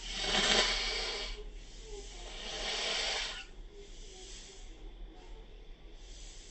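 A person blowing their nose twice, each blow about a second and a half long, the first the louder.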